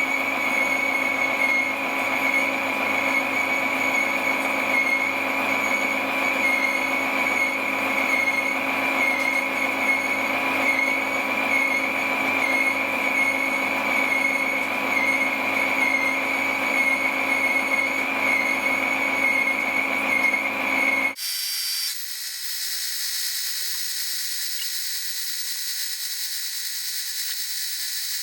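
A power tool running steadily with a loud high-pitched whine. About three quarters of the way through it cuts off abruptly, and a thinner, higher-pitched machine sound with no low end follows.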